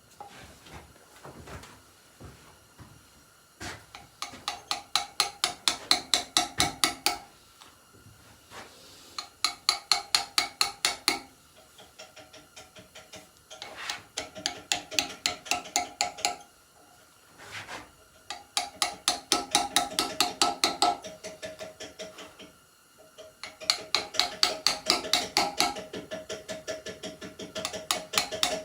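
Hammer striking a steel chisel to cut stone, in runs of quick even blows, about five a second, each run lasting a few seconds with short pauses between. The blows have a metallic ring.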